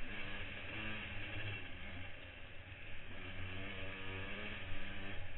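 Yamaha motocross bike's engine revving under hard acceleration, heard from a helmet camera. The pitch climbs twice, easing off around two seconds in, over a steady rush of wind on the microphone.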